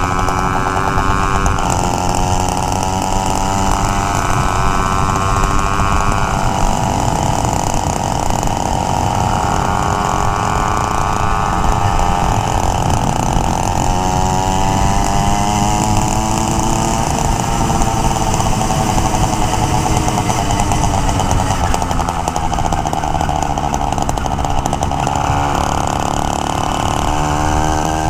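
Small single-cylinder engine of a motorized bike running under way, its pitch rising and falling gently with the throttle, with wind rushing over the helmet-mounted camera.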